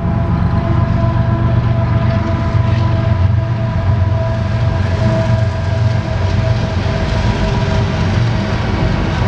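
Diesel locomotives at the head of a long CSX freight train running onto a steel truss railroad bridge: a steady low engine drone with several steady higher tones above it.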